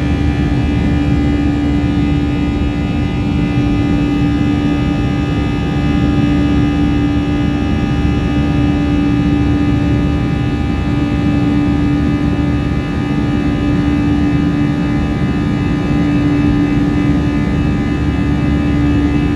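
Airbus A321 cabin noise during takeoff and climb: a loud, steady engine drone with a strong hum and many fainter steady tones over a low rumble, with no change in pitch.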